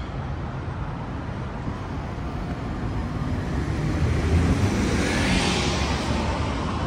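Steady city street traffic noise, with a vehicle passing close by about four seconds in, its sound swelling and fading away.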